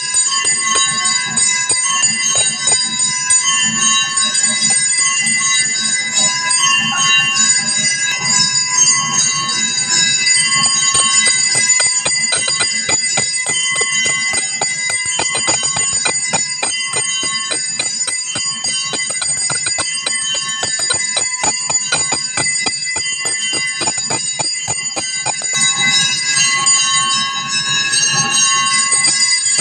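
Temple bells ringing continuously, struck rapidly and evenly, with many overlapping ringing tones, as accompaniment to an abhisheka ritual bathing of a deity idol.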